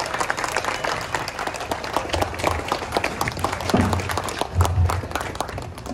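A crowd applauding, many hands clapping steadily, with a few dull low thuds under the clapping.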